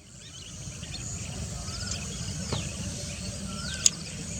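Outdoor field ambience fading in over the first second: a steady low rumbling background with faint, scattered bird calls, short falling whistles and chirps, and one sharp click near the end.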